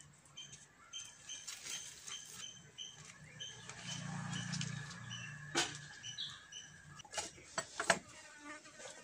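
Short high chirps from a small animal, repeated every fraction of a second, with a few sharp clicks and light rustling as a leaf is peeled off a flatbread on a steel plate; the loudest click comes near the end.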